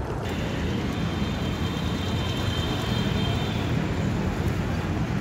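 Scooter ride getting under way: a steady low rumble of wind on the phone's microphone, with the scooter's engine and road noise under it, growing louder at the start.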